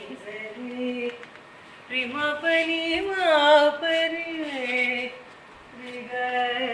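A single voice singing a slow, unaccompanied melody in long held notes that slide between pitches, in three phrases with short breaks between them.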